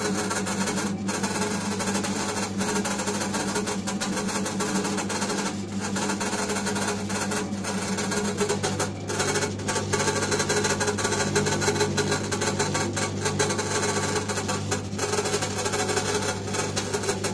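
Electric dough-kneading machine running, its hook arm turning a large batch of flour-and-water dough in a stainless-steel bowl: a steady motor hum whose pitch drops slightly about nine seconds in as the dough comes together.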